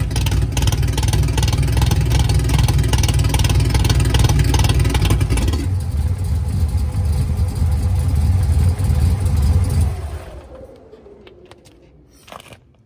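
Cammed 408 cubic-inch Windsor stroker V8 of a 1984 Ford F-150 running through longtube headers. About halfway through the exhaust note turns duller, and about ten seconds in the engine shuts off and the sound dies away, with a few clicks near the end.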